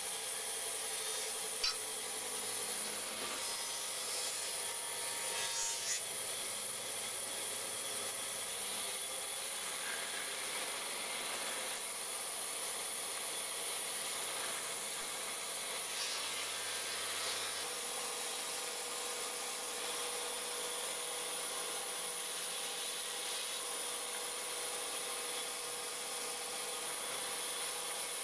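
Band saw running steadily while its blade cuts through a block of wood.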